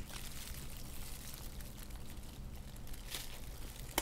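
Faint chewing of a slice of gorgonzola pizza, with a few soft crunches about three seconds in and a sharp click at the end, over a low steady hum.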